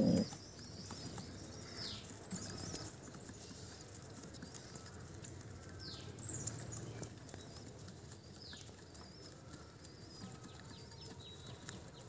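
Birds chirping: thin, high calls that fall in pitch, one every few seconds, over a faint low rustle. A brief low bump right at the start is the loudest sound.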